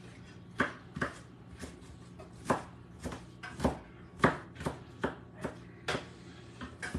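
Kitchen knife rough-chopping diced onion on a wooden cutting board: sharp knocks of the blade on the board, about two a second and unevenly spaced.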